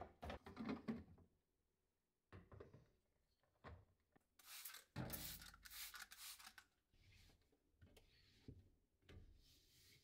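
Plastic food containers knocking as they are handled, then a trigger spray bottle spritzing several quick hissing sprays onto a glass refrigerator shelf, followed by a cloth rubbing the shelf.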